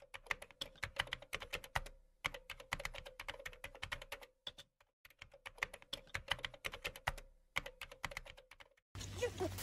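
Keyboard typing sound effect: rapid key clicks in three runs, with brief pauses about two seconds in and again near the five-second mark. The clicks stop shortly before the end.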